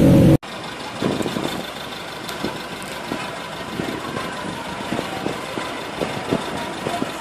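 A loud, low pitched sound cuts off abruptly half a second in. After it a bus engine idles steadily, with scattered light knocks.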